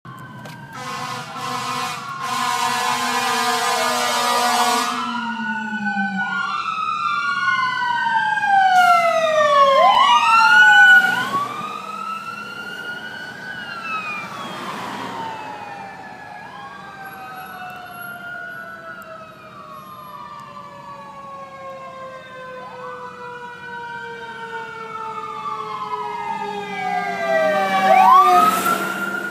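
Fire apparatus sirens heard from inside a stopped car as the trucks approach and pass. A Federal Q mechanical siren winds up and coasts down in long falling tones, overlapping with other wailing sirens. An air horn blasts through the first few seconds and again near the end as a truck goes by.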